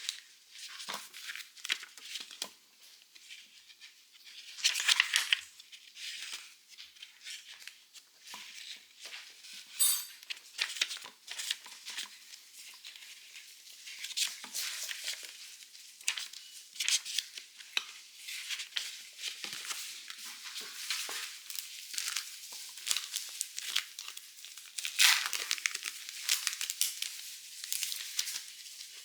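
Stationery packaging crinkling and rustling as it is unwrapped and handled, in many short irregular rustles with louder spells about five seconds in and near the end, and a brief high squeak about ten seconds in.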